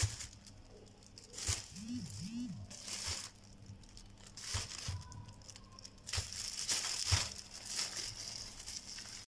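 Thin plastic shopping bags crinkling and rustling in irregular bursts as they are opened and their handles are pulled and tied into knots. The sound cuts out briefly just before the end.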